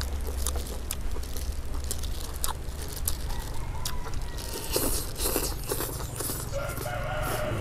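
Live chickens clucking and a rooster crowing, with close clicks and smacks of chewing and tearing roast chicken.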